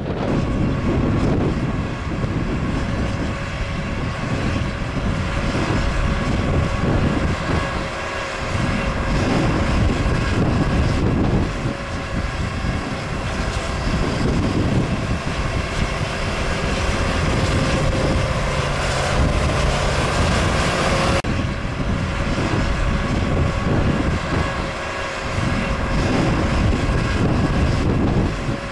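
John Deere 7280R tractor's six-cylinder diesel engine running steadily under load, pulling a seven-furrow plough.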